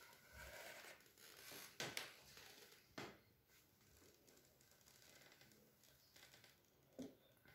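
Near silence: faint room tone with three short, faint clicks, about two, three and seven seconds in.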